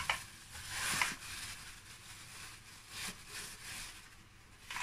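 Plastic bag crinkling and rustling as raw ground meat is squeezed out of it into a stainless steel bowl, in a few short bursts.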